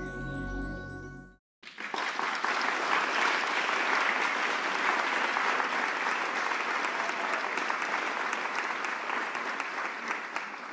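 Ambient music with held tones cuts off about a second and a half in. After a brief gap, a stock recording of polite applause from a small audience follows, fading out near the end.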